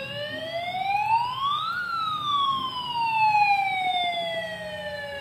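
Battery-powered toy fire rescue boat's electronic siren wailing: the tone rises over about two seconds, then slowly falls through the rest, with a low hum underneath.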